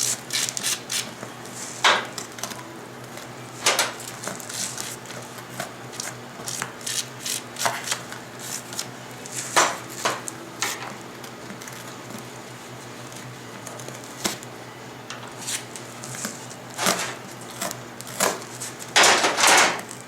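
Scattered short scrapes and clicks from cleaning threads by hand on front-end parts, with a longer scraping run near the end. A faint steady hum lies underneath.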